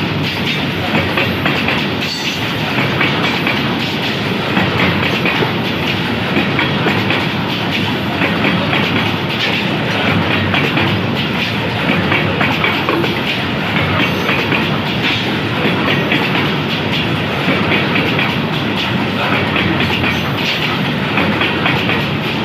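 Freight wagons of a coal train rolling past, their wheels clattering steadily over the rail joints.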